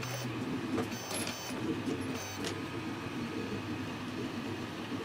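A few light clicks and rattles of 3D-printed plastic gun parts being fitted together by hand, mostly in the first half, over a steady low background rumble.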